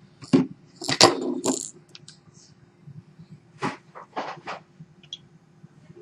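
Light clicks, taps and short scrapes of small hard objects being handled at a workbench, a handful of separate sounds with short gaps between them.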